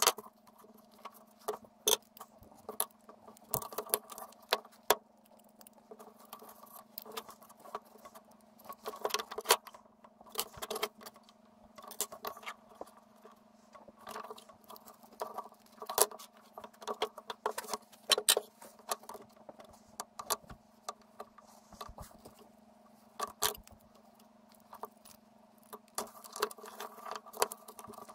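Leather belt, hand tools and a metal buckle being handled and worked on a wooden board: irregular scratching, tapping and clicking, over a steady low hum.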